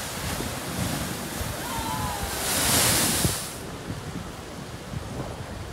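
Rough storm surf surging and breaking against a stone harbour wall, with wind buffeting the microphone. The rush rises to its loudest about two and a half seconds in, then falls away.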